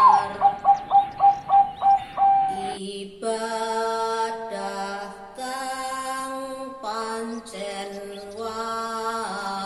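A woman singing a Javanese tembang macapat (Pocung) verse solo in slow, held notes. For about the first two and a half seconds she pulses a single note several times, then moves on through the next line in long steady tones.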